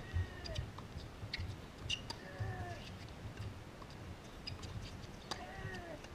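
A tennis rally on a hard court: sharp pops of the ball off rackets and the court, and three short, high shoe squeaks that slide down in pitch as the near player runs and plants his feet, over a low rumble.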